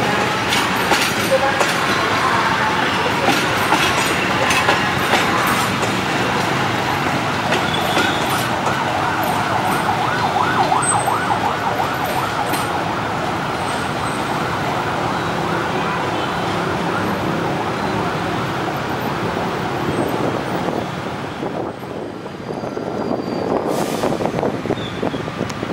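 Passenger train coaches rolling past on a curved turnout, their wheels clattering over rail joints with many sharp clicks. After about eight seconds the wheel flanges squeal on the curve in a long, wavering run of high-pitched screeches.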